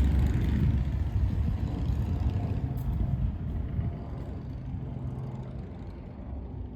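A passing vehicle's low rumble with a steady engine hum, fading away over several seconds as it moves off.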